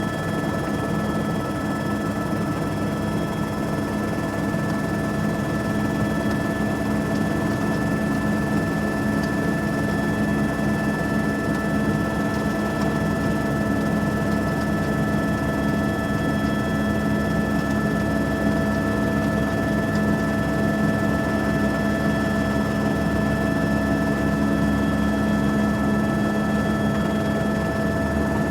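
Helicopter cabin noise: a steady drone of engine and rotor with a constant high whine from the turbine and gearbox over a rushing noise, unchanging throughout.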